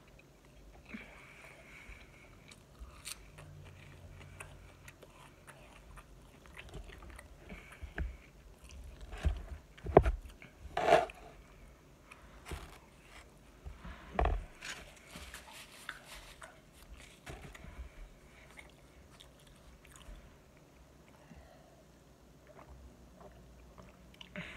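Close-up chewing and mouth sounds of someone eating kabob and side salad, with small clicks and scrapes of a spoon and fingers against the food container. A few louder knocks come about ten and fourteen seconds in.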